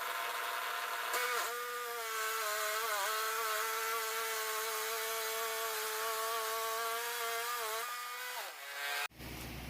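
Wood-Mizer LT10 bandsaw mill running through a cut in black walnut, a steady machine tone that dips briefly in pitch once. Near the end it winds down, the pitch falling.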